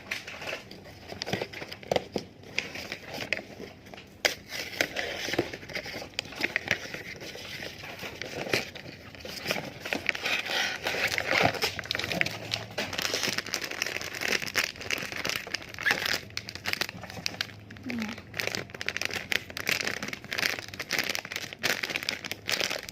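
Blind-box packaging crinkling, crackling and tearing as it is worked at by hand, a struggle to get it open.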